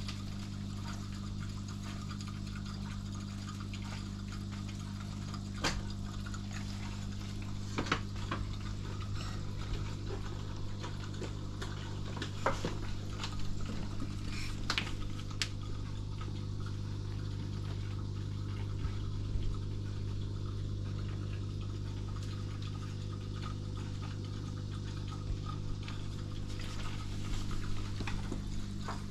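Aquarium equipment running: a steady low hum with water bubbling and trickling, and a few soft clicks.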